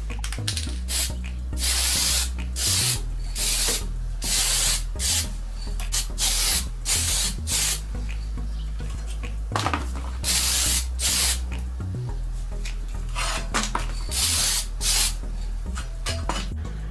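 Aerosol spray can of Mitchakuron adhesion primer hissing in a long series of short bursts, each a second or less with brief pauses between, as a primer coat is sprayed on.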